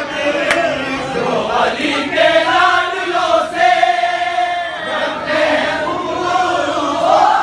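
A group of men singing a qawwali together in chorus, holding long sustained notes.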